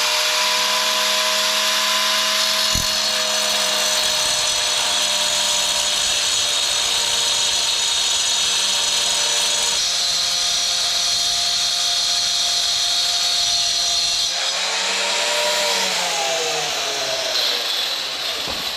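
Corded electric power tool spinning up and running steadily with a high whine for about fifteen seconds, its pitch dropping slightly about ten seconds in, then winding down. It is being used to get the old motorcycle drive chain off without the proper tool.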